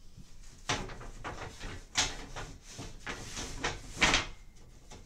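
Wooden bed slats sliding and knocking against each other and the bed frame as they are pulled apart by hand, with sharper knocks at about one, two and four seconds in.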